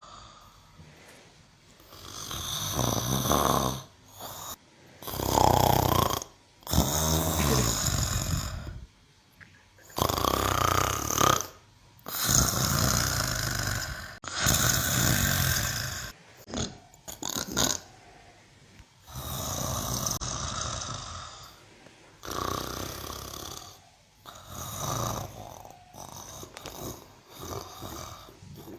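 Cow snoring: a loud snore on each breath, about ten in a row, one every two to three seconds.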